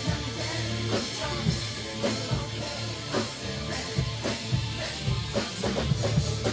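Background music: a rock track with drum kit, bass and guitar on a steady beat.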